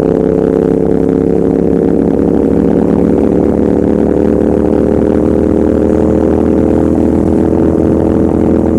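Royal Enfield Continental GT650's 648 cc parallel-twin engine and exhaust pulling steadily under throttle while riding, the pitch rising slowly as the revs climb.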